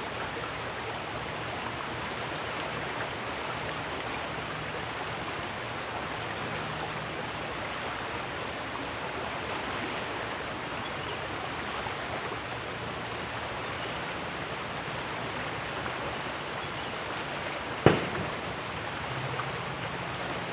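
River water flowing with a steady rushing sound. A single sharp knock near the end.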